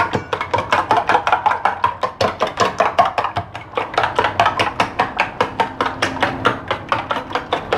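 A spoon beating eggs in a stainless-steel bowl, tapping against the bowl in a fast, steady rhythm of about six to seven strokes a second.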